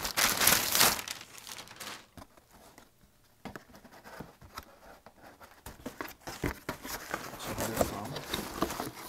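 Thin plastic carrier bag crinkling loudly as it is pulled off a package, for about the first two seconds. Near the end come quieter rustles and scrapes as the flaps of a cardboard box are opened.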